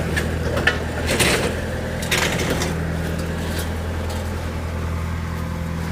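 Engine of the vehicle towing a wooden feeder running steadily, with several sharp cracks and creaks, mostly in the first few seconds, as the wooden structure is dragged between trees.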